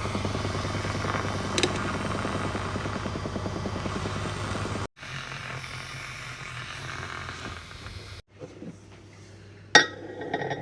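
Nespresso coffee machine's pump buzzing steadily while it brews, cutting off abruptly about five seconds in and going on more quietly. A single sharp clink comes near the end.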